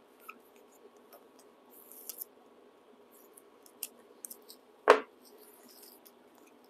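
Small rolls of labels being handled at a work table: soft rustles and light clicks, with one sharp knock about five seconds in, over a faint steady hum.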